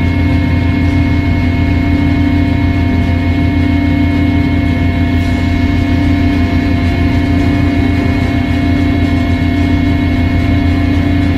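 Aircraft engine noise heard from inside the cabin: a loud, steady drone with several steady whining tones above it.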